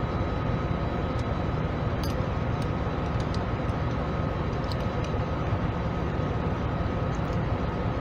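Steady low machine drone with a faint high steady whine, and a few faint light clicks of small metal parts being handled.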